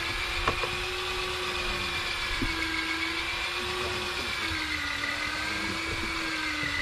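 Boat motor running steadily with a whine that wavers slightly in pitch, and a few light knocks.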